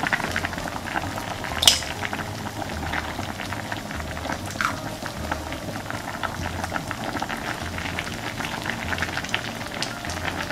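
Soup bubbling at a rolling boil in an earthenware pot (ttukbaegi), a steady fizzing bubble with many small pops. A single sharp click about a second and a half in.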